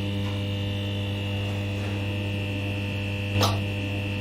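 Electric buzz of a neon sign: a steady mains hum with a faint high whine over it, broken once by a short crackling zap about three and a half seconds in.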